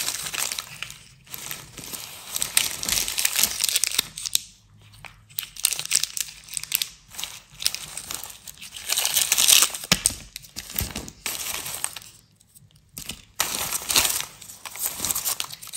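Rustling and crinkling of a small burlap drawstring gift bag holding peanuts and chocolates as it is handled, in bursts with short pauses.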